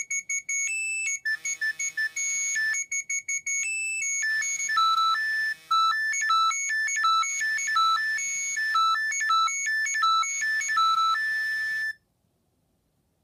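A Nokia 3510 polyphonic ringtone playing from a Nokia 7100 Supernova's loudspeaker: a high-pitched electronic tune in repeating phrases. It stops abruptly near the end.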